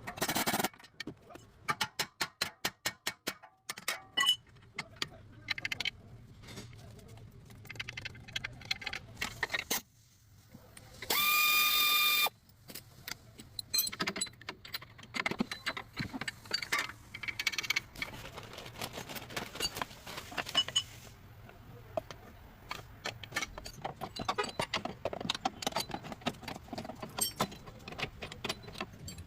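Metal tools clicking and clanking during front suspension work on a Toyota Land Cruiser, with a rapid run of even clicks early on and a brief steady power-tool whine about eleven seconds in.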